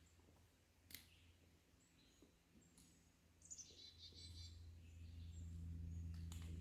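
Faint woodland ambience with a small bird singing a short, fast, high trill about halfway through and a single click about a second in. A low steady hum swells in the second half.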